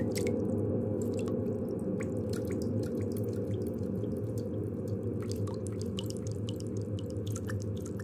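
Water-drip soundscape: many scattered water drops falling irregularly over a steady low rumble.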